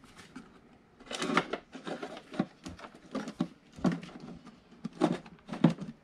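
Irregular clicks, rattles and rustles of a bundle of wires and a plastic control panel being pushed back into a wall opening by hand, starting about a second in.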